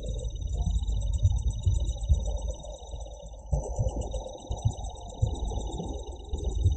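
Insects trilling in a high, steadily pulsing chorus, one voice pausing briefly midway, over a constant low rumble with small knocks.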